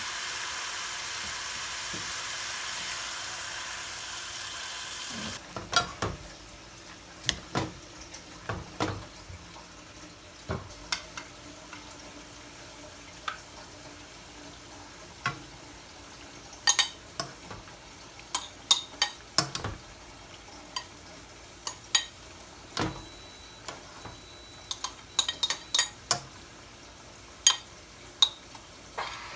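Food sizzling in a hot pan, which stops abruptly about five seconds in. After that, cooking utensils clink and knock against pots, pans and dishes at irregular intervals.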